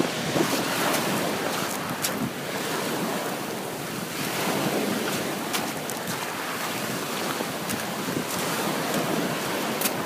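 Small waves washing in and sliding back on a beach, with wind buffeting the microphone. A few faint sharp clicks stand out over the steady wash.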